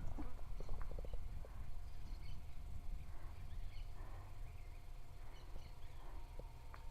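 Quiet footsteps and a few small knocks of a player moving with their gear, over a steady low rumble on the microphone.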